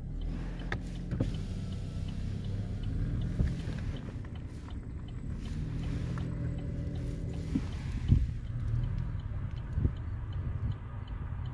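Car driving, heard from inside the cabin: a steady low engine and road rumble with a few short knocks and bumps, the sharpest about eight seconds in.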